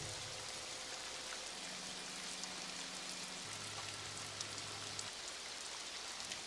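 Faint record surface noise: a steady hiss with scattered light crackles. Two faint low held notes, the tail of the faded music, sound one after the other through the middle.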